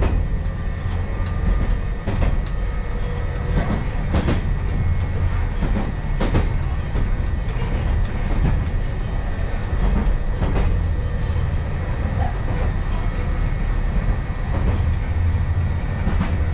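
Hankai Tramway streetcar running along its track, heard from inside the car: a steady low rumble with a sharp wheel click over the rail joints about every two seconds.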